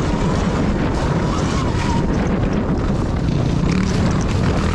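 Riding a Sur Ron electric dirt bike: heavy wind buffeting on the microphone, with the motor's faint whine wavering in pitch over the first couple of seconds and scattered short clicks later on.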